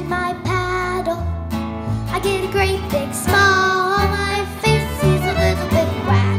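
Live acoustic country-bluegrass song: a young girl singing with acoustic guitar strumming, fiddle playing and upright bass underneath.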